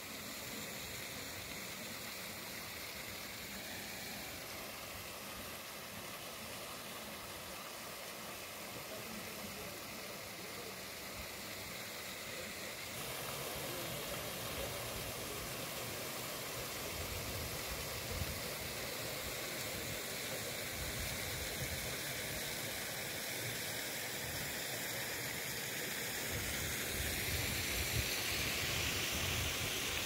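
Steady rushing of water spilling over a stepped stone weir into a pond. A low, gusty rumble joins near the end.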